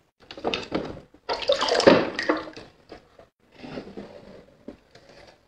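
Water splashing and sloshing in a bathroom sink as plastic toy trucks are pushed through it, in irregular bursts with the loudest stretch about a second in.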